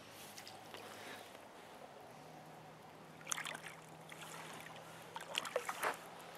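Water splashing and sloshing in short bursts, once about halfway through and again as a longer cluster near the end, over a faint steady hum.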